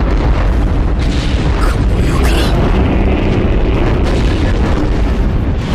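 Continuous deep, loud rumbling from the massed march of the Colossal Titans, a dense low boom with no separate footfalls standing out.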